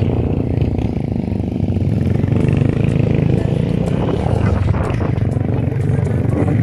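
Small motorcycle engine running steadily while riding along a gravel dirt road, with scattered rattles and clicks over it.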